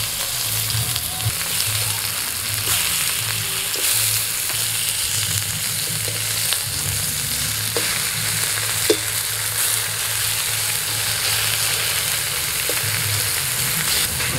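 Tomato slices sizzling in oil in a metal kadai, with a spatula now and then scraping and tapping the pan; one sharper tap about nine seconds in.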